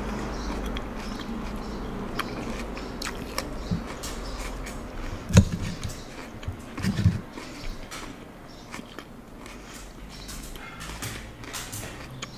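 Close-miked eating sounds: chewing with small wet mouth clicks, then a fork cutting into tofu on the plate, with a few low thumps about halfway through.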